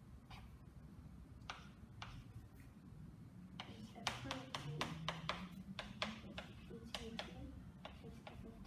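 Chalk tapping and scratching on a blackboard during writing. A few scattered taps come at first, then a quick run of sharp taps from about three and a half seconds in.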